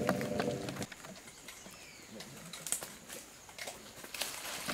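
Asian elephant's low, pitched groaning rumble that stops under a second in, followed by scattered light clicks and rustles.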